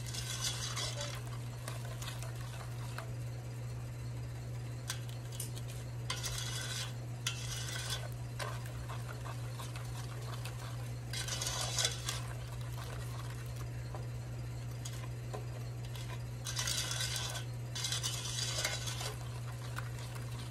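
Silicone spatula stirring and scraping a runny chocolate mixture of butter, milk, cocoa and sugar around a stainless steel pot, in short spells of about a second every few seconds, to smooth out cocoa clumps. A steady low hum runs underneath.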